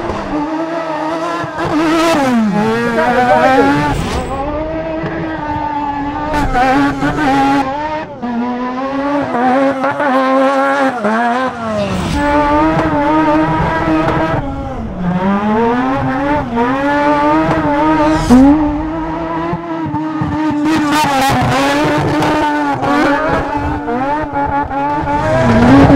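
Stadium race truck's rotary engine at full throttle, a high steady note that drops sharply and climbs back up every few seconds as the driver lifts and shifts. Short sharp cracks come through at times.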